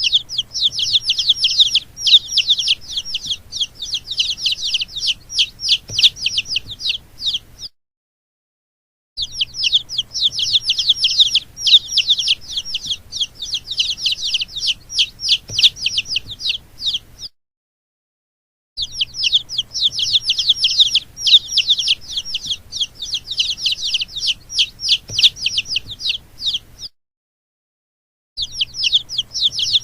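Baby chicks peeping, a dense run of rapid high peeps in stretches of about eight seconds, cut by three short gaps of silence.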